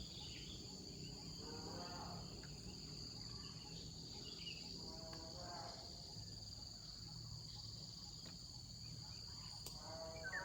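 Steady high-pitched insect chorus, typical of crickets, with a short call of several stacked tones repeating about every three to five seconds, three times in all.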